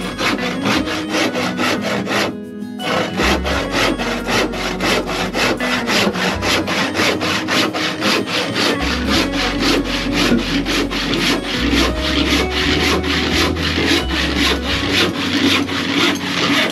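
Hand saw cutting through a painted wooden timber in quick back-and-forth strokes, about three to four a second, with a short pause about two seconds in.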